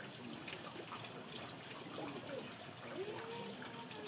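Steady rain falling, with water trickling and dripping.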